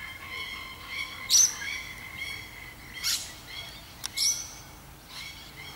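Birds calling: a run of short repeated chirps, with three louder rising calls about a second in, around three seconds and just after four seconds.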